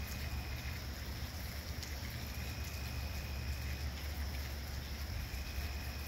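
Night thunderstorm ambience: a steady low rumble with light rain. An insect's high trill comes in stretches of about a second and a half, repeating every three seconds or so.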